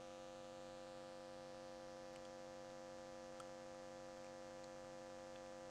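Faint steady electrical mains hum, several fixed tones held without change, with a tiny click about three and a half seconds in.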